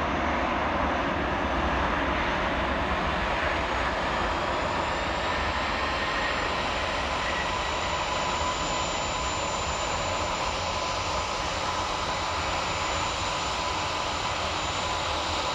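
Airbus A319 jet engines at take-off power during the take-off roll: a steady rushing noise with faint steady whining tones over it, easing slightly toward the end.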